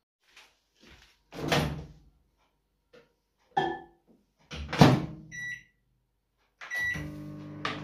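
A few knocks and thuds, the loudest about two thirds of the way through, then a countertop microwave beeps as its dial is set and starts running with a steady hum near the end.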